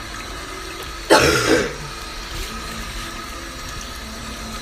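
A person clears their throat with a short cough once, about a second in, over a steady faint background hiss.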